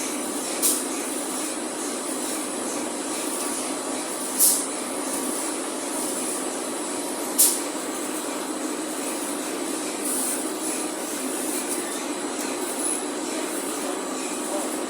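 TIG welding arc on stainless steel pipe, a steady hiss with a thin high whine, broken three times by short sharp clicks.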